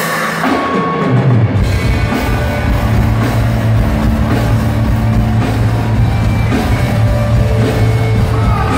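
Rock band playing live over a concert PA, recorded from among the crowd: a bass line and drum kit come in about a second in and the band plays on at full volume.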